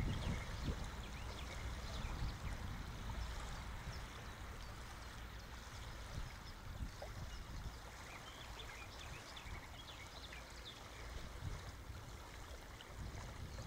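Wind buffeting the microphone in uneven gusts over a steady outdoor hiss, with faint short high chirps scattered through.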